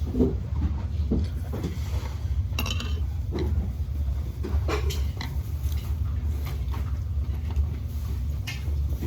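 Close-up eating sounds of a person slurping and chewing jjajangmyeon noodles, with a few soft utensil clicks against the bowl, over a steady low hum.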